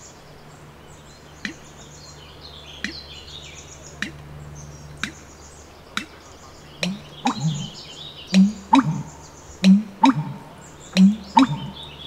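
American bittern's booming 'pump-er-lunk' call: deep gulping notes in groups of two or three, repeated about every second and a half from about seven seconds in, after a run of sharp clicks about once a second. The male makes it by gulping air, to attract mates and defend his breeding territory. Faint high twittering runs in the background.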